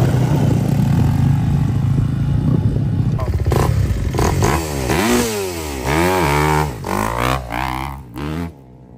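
Dirt bike engines running steadily, then revved up and down several times in the second half, the pitch rising and falling with each rev.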